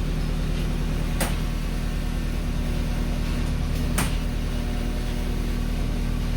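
Mazda Miata's 1.6-litre four-cylinder engine idling steadily while its cooling system is bled of air, with two sharp clicks, about a second in and about four seconds in.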